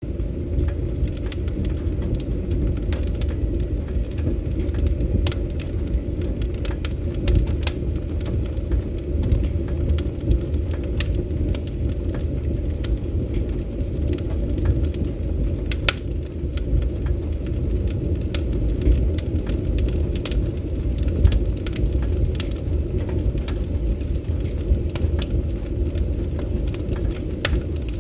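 Wood fire crackling in a fireplace: a steady low rumble of burning with irregular sharp pops and snaps throughout, a few of them louder.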